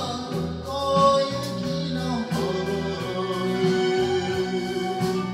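A man singing an enka song into a karaoke microphone over its backing track, holding one long note in the second half.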